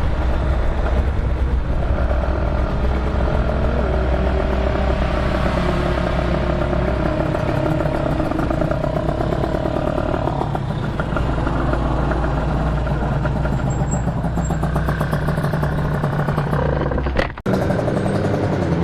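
Motorcycle engine running steadily, its pitch shifting a little now and then, with a brief cut in the sound about seventeen seconds in.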